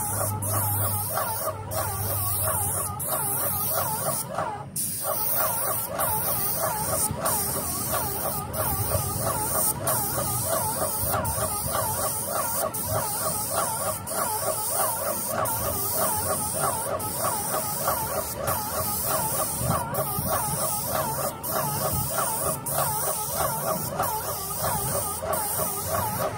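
Airless paint sprayer spraying paint onto a metal roof: a steady hiss with regular clicks about every half second, over a wavering whine that pulses a few times a second.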